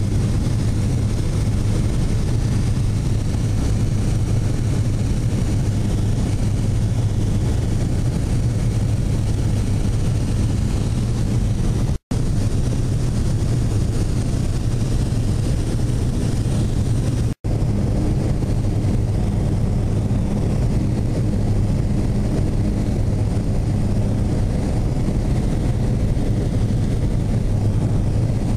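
Light propeller plane's engine and propeller droning steadily, heard from inside the cabin. The sound cuts out for an instant twice, a little before halfway and again about two-thirds of the way through.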